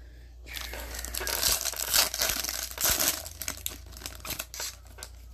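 Foil wrapper of a trading-card pack being torn open and crumpled, a dense crackling crinkle for about three seconds, then a few lighter crinkles and clicks as the cards are handled.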